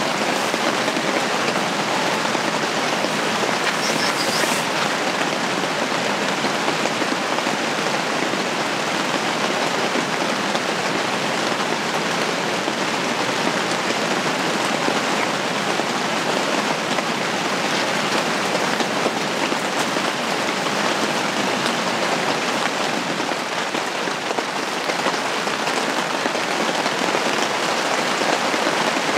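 Steady spring rain falling on the fabric of a camping shelter, an even, unbroken patter.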